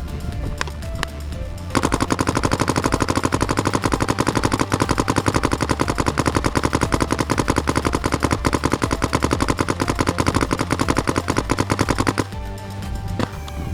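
Paintball marker firing in one long rapid string, about ten shots a second, stopping suddenly near the end; music plays underneath.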